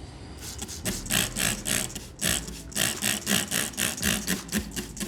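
Stiff brush scrubbing a grimy motorcycle brake caliper wet with soapy water, in quick back-and-forth strokes, about three to four a second.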